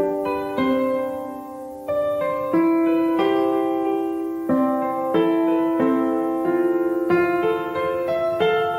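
Background piano music: slow, gently struck chords that change about once a second.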